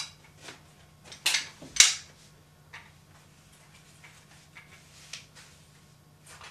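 Handling noise from adjusting the straps and fittings of a body-mount camera support vest: a few short scrapes and clicks, the two loudest about a second and two seconds in, over a steady low hum.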